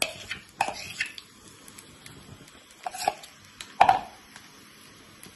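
Mashed boiled potato being scraped out of a plastic bowl into a frying pan: a handful of sharp knocks and taps of the utensil and bowl against the pan, the loudest a little under four seconds in.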